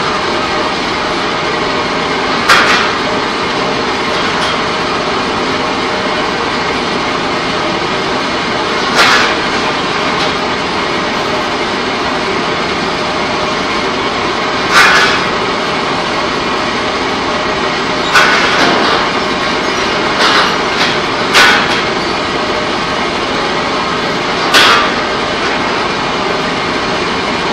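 Steady loud din of pipe-coating line machinery, broken every few seconds by sharp bangs that stand out above it, several of them close together towards the end.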